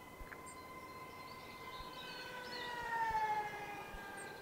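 The twin brushless electric motors and two-blade propellers of a 3D-printed RC plane whining at high speed. The whine swells to its loudest about three seconds in, then drops in pitch and fades as the plane passes.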